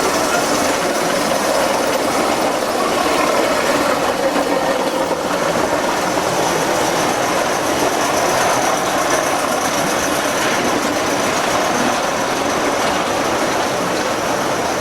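Gauge 1 model train running along the track with a steady rolling noise.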